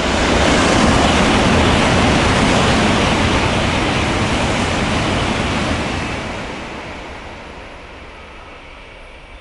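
N700-series Shinkansen passing straight through a station at speed: a loud rush of air and wheel rumble that peaks as the train goes by and fades away after about six seconds.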